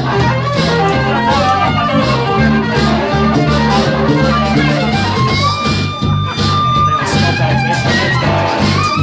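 Live rock band playing in a small room: an electric bass line, acoustic guitar, drums and a lead instrument. The lead holds one long high note about five seconds in.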